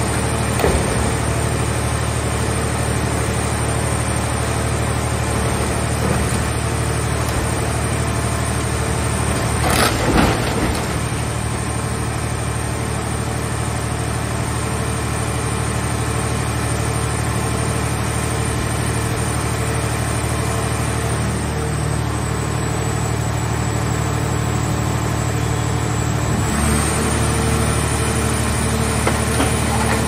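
Power unit of a mobile scrap car baler running steadily, driving its hydraulics, with a short louder burst of noise about ten seconds in. Near the end its note shifts as the press lid comes down on the car shell.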